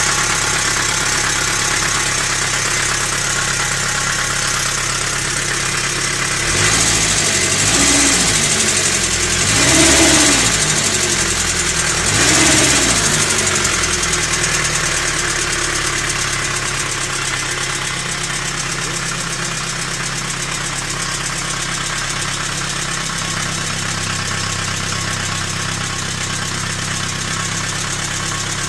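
ZMZ-405 four-cylinder petrol engine idling with a knock and rustling of unclear origin, the hydraulic lifters clattering after a cold start. It is revved briefly three times, about seven, ten and twelve seconds in, then settles back to a steady idle.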